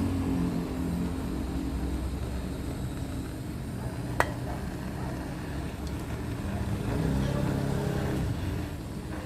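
Handheld butane torch burning with a steady low rumble while it heats steel, with one sharp metallic click about four seconds in.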